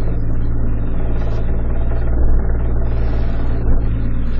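Small fishing boat's engine running steadily: an even low hum.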